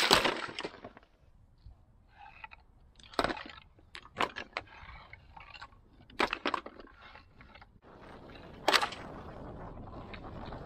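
Flat dry-stone slabs knocking and scraping against each other as they are handled and trodden on. A louder clatter comes at the start, then single knocks every second or two, and a steady background hiss comes in near the end.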